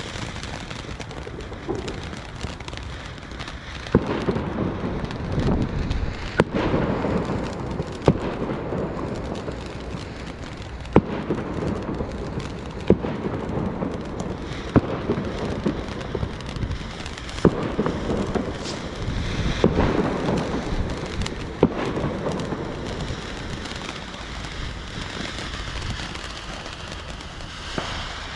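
Ground firework fountain burning, a steady hissing spray of sparks with crackle. About nine sharp bangs break through it, spaced a couple of seconds apart.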